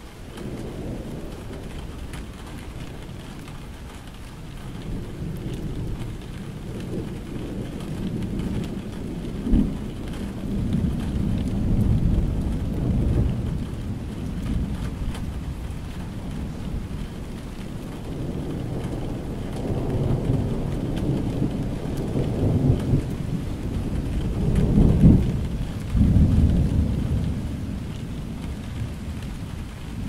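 Steady rain falling, with rolling thunder rumbling in long waves beneath it. Sharper, louder claps come about a third of the way in and again toward the end.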